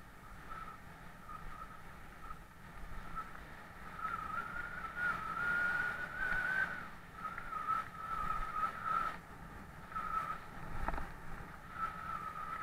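Mountain bike rolling fast down a gravel track: a low rumble and scattered knocks from the tyres and frame over stones, with a thin, high whining tone that wavers in pitch and cuts in and out. A heavier thump comes near the end.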